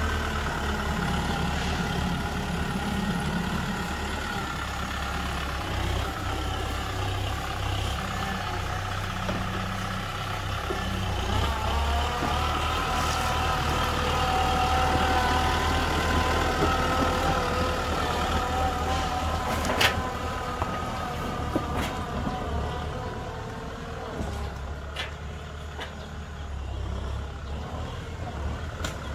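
Tractor's diesel engine running steadily as the tractor moves slowly, with a steady whine over its low hum. A few sharp knocks come in the last third.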